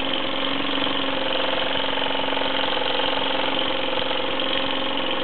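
1948 Mamod SE1 toy steam engine running steadily under steam with a fast, even beat, together with the whirr of the pulleys and line shafting of the small Meccano workshop it drives.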